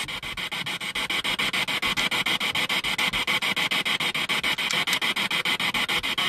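Ghost-hunting spirit box sweeping through radio stations, putting out hissing static that chops on and off in a fast, even rhythm; no voices come through it.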